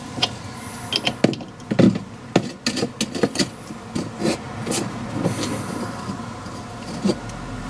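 Irregular metallic clicks and knocks of a socket and bar working the wheel nut that draws a longer disc-wheel stud into an MGA rear hub over a stack of washers. The clicks come thick for about five seconds, then one more knock near the end.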